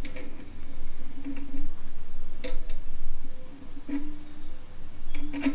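Clicks and taps of a homemade tool tightening the lower coordinator rod inside an Epiphone 250 banjo's pot, with short low ringing from the banjo as it is handled. Two clicks stand out, one about halfway and one near the end.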